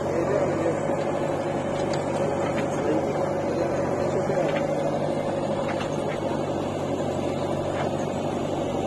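Diesel engines of an Eicher tractor and a JCB 3DX backhoe loader running steadily, an even hum with no change in speed, with a few faint clicks.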